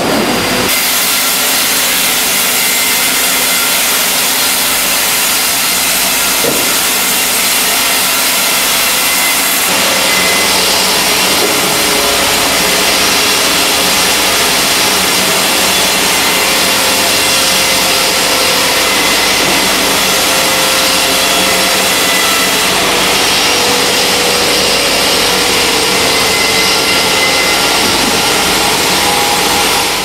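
Steady, loud din of sawmill machinery: horizontal band saws and resaws running with their roller conveyors, a dense even noise with faint steady whines in it. The sound shifts abruptly about ten seconds in.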